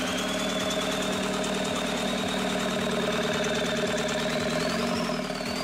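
Volkswagen TDI turbodiesel engine idling steadily with a regular low knock, running for the first time with its injection pump timing not yet dialed in.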